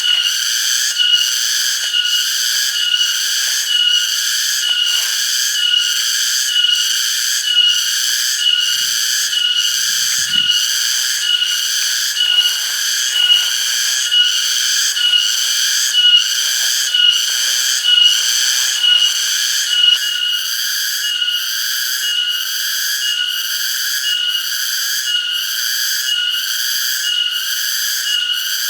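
Cicadas singing: a loud, shrill, pulsing drone that swells about one and a half times a second.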